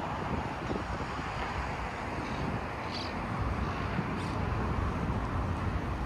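Wind buffeting the microphone: an irregular low rumble over a steady outdoor hiss, with a few faint short high ticks.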